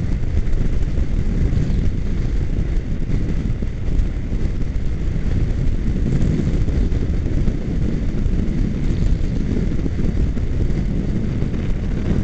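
A motorcycle cruising at freeway speed, heard from the bike: a steady rush of wind buffeting the microphone over the engine and road noise, heaviest in the low rumble.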